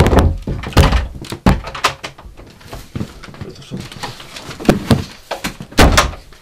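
Knocking on a door, several quick knocks in the first two seconds, then scattered thumps and bumps as the door is opened, with a loud thud near the end.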